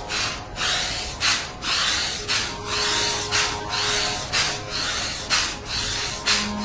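Forceful rhythmic breaths through the nose during agnisar abdominal pumping: a hissing rush about twice a second.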